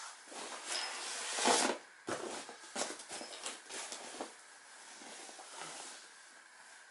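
A body shifting and bumping on a vinyl-covered Harbinger folding exercise mat: a run of rustles and soft thumps as hands, knees and legs move and land on the mat. It is loudest about a second and a half in and dies away over the last couple of seconds.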